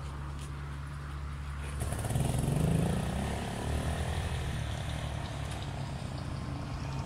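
Motorcycle being push-started on a flat battery: its engine catches about two seconds in, revs up and keeps running as the bike pulls away.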